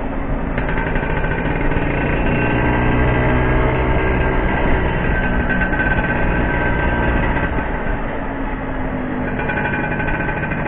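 Classic Vespa scooter's two-stroke engine running steadily under way, its note shifting a little as the rider holds speed, over a low wind rumble.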